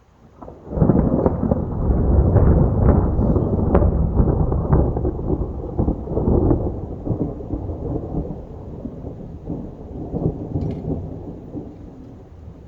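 Thunder: a sudden crack a little under a second in, then a long rolling rumble with crackles over the first few seconds, slowly fading away.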